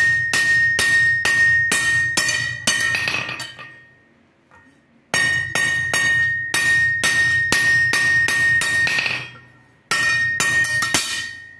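Hand hammer striking a steel crowbar on an anvil, about two and a half blows a second, in three runs with short pauses. Each run is carried by a steady high ring from the anvil.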